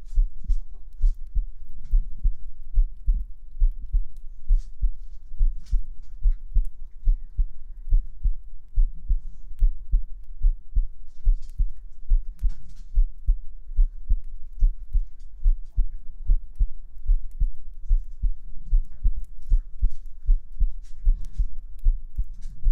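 Human heartbeat, amplified close up: a steady, even rhythm of low, deep thumps.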